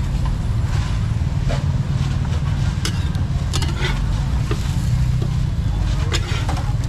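Busy market street noise: a steady low rumble with scattered clicks and clatter and some voices in the background.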